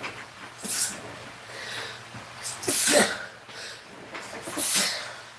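A man sneezing, three sharp sneezes about two seconds apart, the middle one the loudest.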